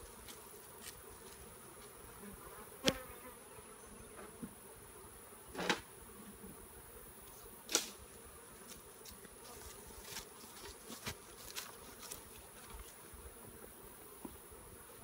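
Honeybees buzzing around a freshly opened hive during a nuc transfer, a steady hum with a few single bees flying close past the microphone, each a short swell that rises and fades.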